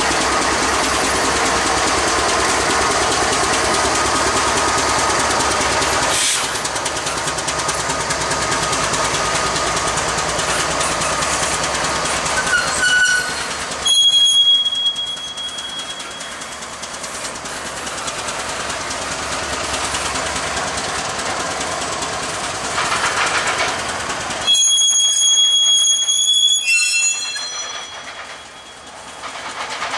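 Florida East Coast Railway freight train passing close by: diesel locomotives run past for the first few seconds, then intermodal well cars loaded with truck trailers roll by with steady wheel rumble and rail clatter. High-pitched wheel squeal rings out twice, about 14 seconds in and again around 25 seconds.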